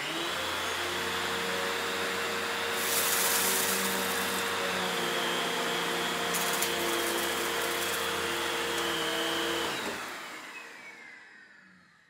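Patriot Hybrid canister vacuum with its electric power nozzle running on carpet, a steady motor whine and airflow hiss as it picks up debris, with brief bursts of brighter hiss about three seconds in and again near seven seconds. About ten seconds in it is switched off, and the motor spins down with a falling whine.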